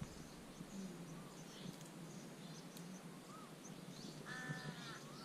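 Faint bird calls: two cawing calls with several layered tones near the end, and a few short chirps earlier.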